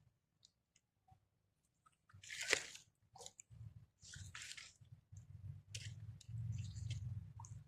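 Wet chewing and crunching in irregular bursts, the loudest about two and a half seconds in, typical of a monkey eating close to the microphone. A low rumble builds up in the second half.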